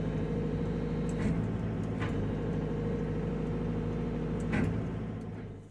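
Volvo excavator's diesel engine running steadily, with a few light clicks over it, fading out at the end.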